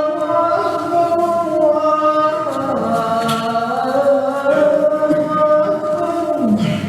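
A man chanting in long, ornamented held notes. The melodic phrase slides down and fades near the end.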